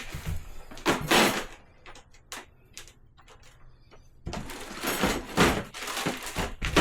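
Small parts and packaging being handled: a few scrapes and knocks, then from about four seconds in a busy stretch of rustling and clattering.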